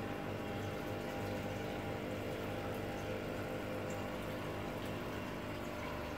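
Aquarium pump running with a steady electric hum, over the bubbling and trickling of the tank's water.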